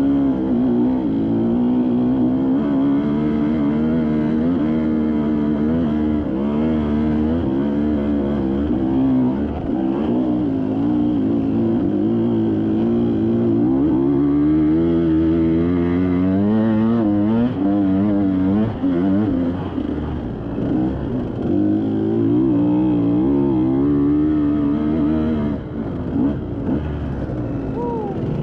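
Dirt bike engine running under the rider, revving up and down over and over as it is ridden along a rough trail.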